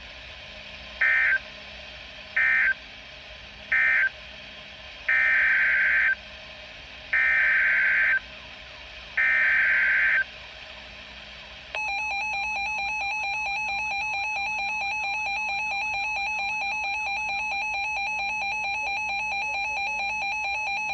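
Emergency Alert System data bursts on weather radio. First three short buzzy end-of-message bursts close one tornado warning. Then three longer SAME header bursts open the next, followed about two-thirds of the way in by a steady electronic attention tone.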